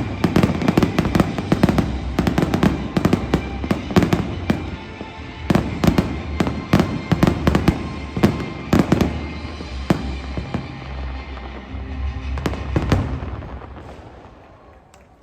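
Fireworks display: a rapid barrage of bangs and crackles over show music, thinning out and dying away near the end.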